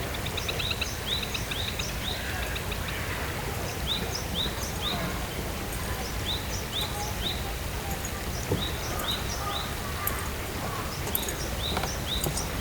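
A bird calling in short, high, upward-flicking chirps, repeated in quick runs of two to four notes throughout, over a steady low outdoor rumble.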